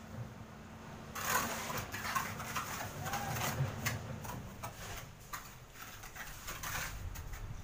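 A hand trowel scraping across wet cement, smoothing a concrete cabinet top in irregular strokes that begin about a second in.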